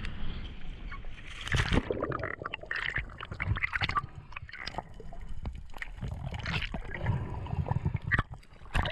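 Water sloshing and gurgling against a small boat, with irregular knocks and clicks throughout.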